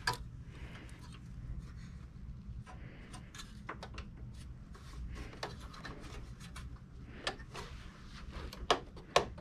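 Handling noise from hands working inside an open computer tower's sheet-metal chassis: scattered clicks, taps and light knocks of parts and cables, the sharpest at the very start and twice near the end, over a steady low hum.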